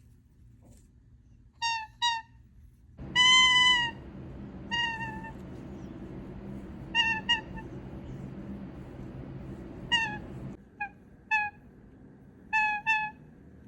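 Pet toucan giving its happy honks: about a dozen short, pitched honks, many in quick pairs, with one longer drawn-out honk about three seconds in. A steady hiss sits under the middle stretch.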